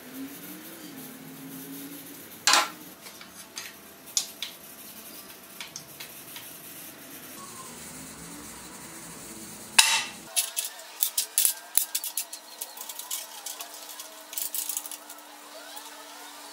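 Steel clamp parts and mitred steel bars being handled on a steel welding table: a few scattered clinks and two sharp metal knocks, then, from about ten seconds in, a quick run of light clicks and clinks as the pieces are set into the clamp.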